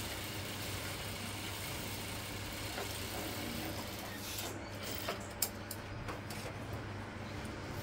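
Cloth being handled and folded on a countertop: a few light rustles and soft knocks partway through, over a steady low background hum.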